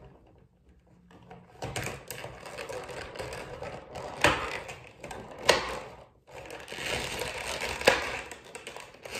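Clear plastic packaging rustling and crinkling as a vinyl figure is worked back into its box, with three sharp plastic clicks along the way. It begins after about a second and a half of quiet.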